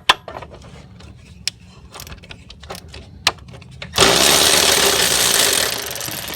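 Irregular clicks and knocks of a wrench working the mower engine's oil drain plug loose, then about four seconds in a sudden loud, steady rush as the oil pours out into a drain pan, easing off near the end.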